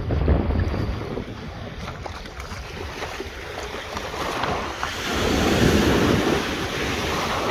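Small sea waves washing and splashing around feet wading in the shallows, with wind buffeting the microphone. The wash swells loudest a little past the middle.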